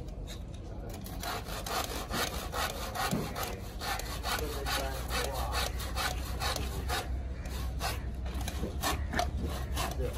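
Hand saw cutting timber, a steady run of rasping strokes about three or four a second, starting about a second in.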